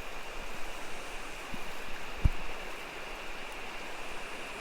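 Steady rush of a flowing creek, with a single dull thump a little over two seconds in.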